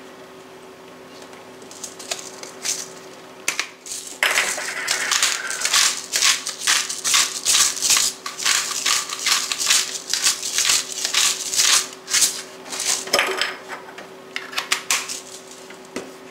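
Loud off-camera crinkling and crackling, like thin material being handled: a few sharp clicks at first, then dense crinkling from about four seconds in until about thirteen seconds, and a short burst again near the end.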